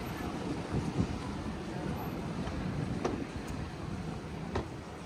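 Town-street ambience: a steady low rumble of passing traffic with wind buffeting the microphone, and two faint sharp clicks about three and four and a half seconds in.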